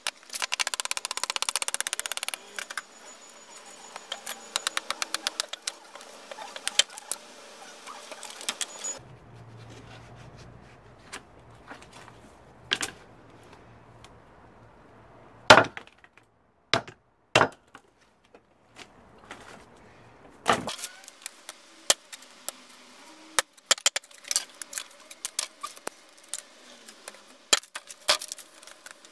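A knife is driven with a rubber mallet through dried palm frond stalks on a wooden block, splitting them. The sound is knocks and cracks, some in quick runs of taps and a few single loud strikes, and dry split strips clatter as they are handled and tossed onto a pile.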